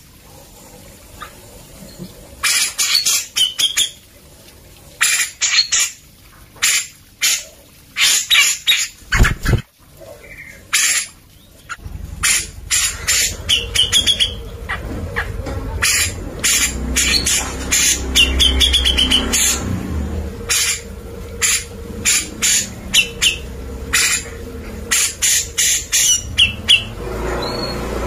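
Grey-cheeked bulbul (cucak jenggot) in full song: loud, short, harsh notes given in quick runs, broken by a few brief wavering trills.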